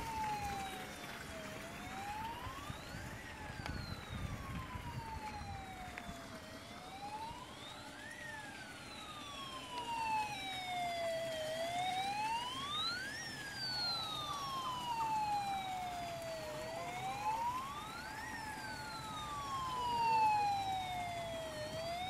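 Siren sound effect from a toy RC fire-rescue boat, wailing in slow cycles. Each cycle rises in pitch for under two seconds and falls for about three, repeating roughly every five seconds.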